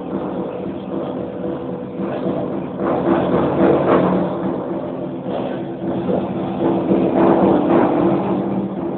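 Buddhist prayer chanted in a steady, low monotone drone, growing louder about three seconds in and again around seven seconds.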